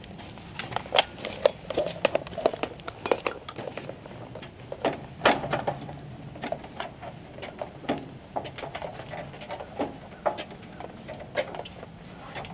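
Irregular light clinks and knocks: boots on the rungs of an aluminium ladder and a loaded tool belt jangling as a man climbs and handles boards. A few sharper knocks stand out.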